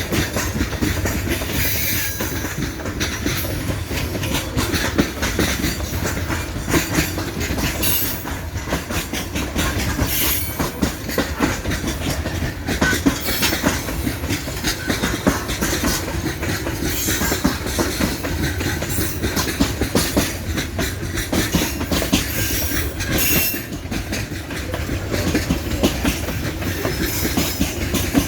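Coal train's freight wagons rolling past, with a steady rumble and a continuous clickety-clack of wheels over the rail joints. There are a few brief high screeches from the wheels.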